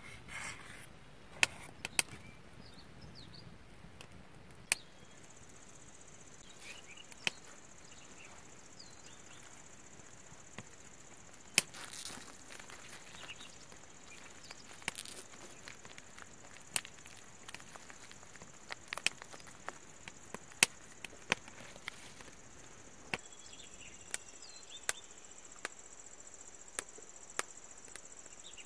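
Wood fire crackling: scattered, irregular sharp pops and snaps over a quiet background. A steady, faint, high-pitched whine joins about five seconds in.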